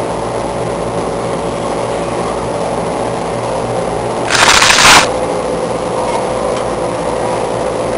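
Steady mechanical drone with a constant hum from the fan machinery of a man-made tornado exhibit. About halfway through, a loud hiss of rushing air cuts in for under a second.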